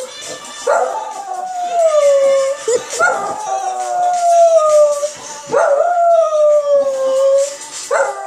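West Highland White Terrier howling, muzzle raised: a run of long howls, one about every two and a half seconds, each rising briefly and then sliding slowly down in pitch.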